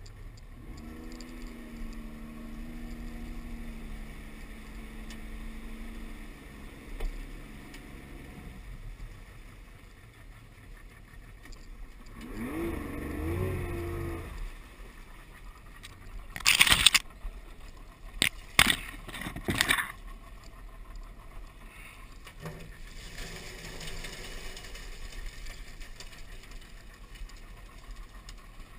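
A Yamaha outboard motor drives a skiff through swamp water. It runs steadily at first, then swells briefly with its pitch rising and falling a little before halfway. Four or five sharp, loud knocks come in quick succession just after halfway, and later the sound is mostly a rushing of water along the hull.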